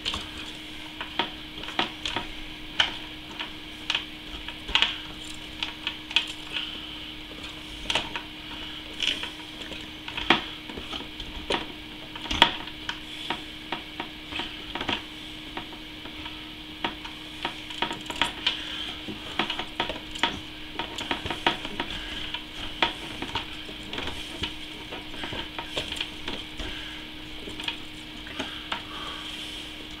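Irregular small clicks, taps and rubbing from hands working a water-cooling pump's outlet fitting and vinyl tubing, over a steady low hum.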